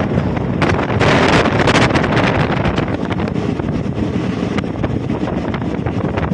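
Passenger train running at speed, heard from an open window or door: the steady rumble of the coaches on the track, mixed with wind buffeting the microphone in gusts, strongest about a second in.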